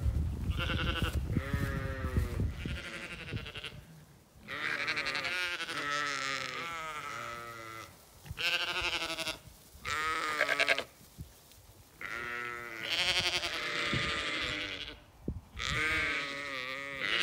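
Zwartbles sheep bleating: about six quavering baas, some long and overlapping from several animals at once, with short quiet gaps between them.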